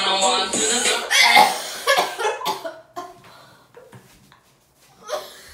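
A girl coughing in several short bursts, then a quiet stretch; music fades out in the first second.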